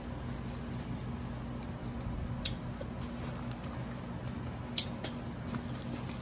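A fabric backpack being handled and turned over: soft rustling of the material, with two sharp clicks from the bag's hardware, about two and a half and five seconds in, over a steady low hum.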